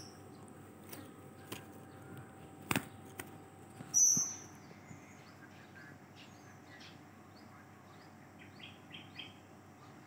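Blue-crowned hanging parrot (serindit) giving a single short, sharp high call about four seconds in, with a sharp knock shortly before it and a few faint ticks near the end.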